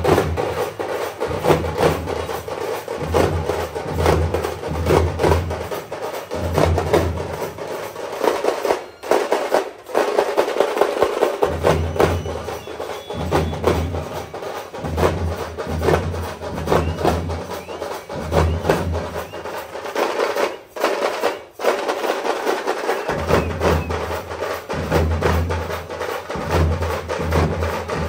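Festival drum troupe beating large stick-played drums in a fast, dense rhythm, with a deep pulsing beat under rapid sharp strikes. The deep beat drops out for a few seconds about a third of the way in and again about three quarters of the way through, while the fast strikes carry on.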